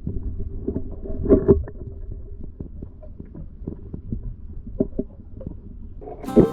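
Scattered knocks and clicks over a low rumble, as of hands and gear bumping about in a canoe or kayak, with two louder knocks about a second and a half in. Music starts just before the end.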